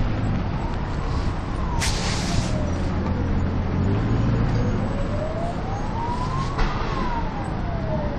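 Emergency vehicle siren wailing slowly: its pitch falls, rises over a few seconds and falls again, over a steady low rumble of road traffic. A brief hiss about two seconds in.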